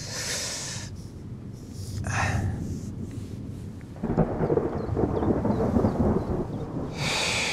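A man breathing hard after exertion, with hissy exhales near the start, about two seconds in and near the end. From about four seconds in a low rumble runs underneath.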